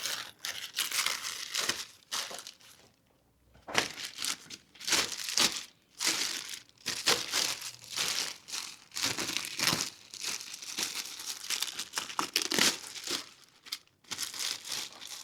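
Packing material being crumpled and torn by hand in irregular bursts, with a short pause a few seconds in.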